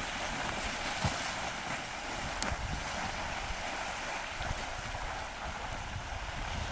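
Wind buffeting the microphone over shallow seawater washing and splashing along a rocky shore.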